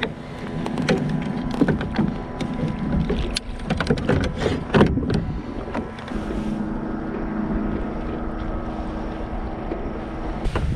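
Wind on the microphone and water lapping against a plastic kayak hull, with a run of sharp clicks and knocks in the first half as the trout, hook and lure are handled. A low, steady hum comes in over the second half.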